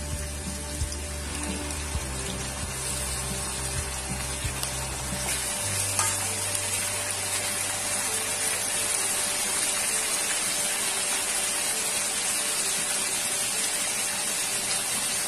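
Raw mutton pieces frying in hot mustard oil with onions in a kadhai: a steady, dense sizzle that grows louder a few seconds in.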